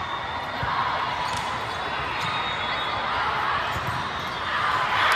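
Volleyball rally in a large echoing hall: sharp hits of the ball over a steady crowd din, with shouting and cheering swelling near the end.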